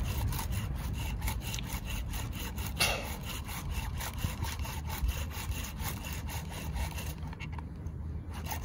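PSKook wooden bow drill being worked: the spindle rubbing in the fireboard as the bow is pushed back and forth in a steady, even rhythm of wood on wood. This is the early drilling stage, before any smoke or ember.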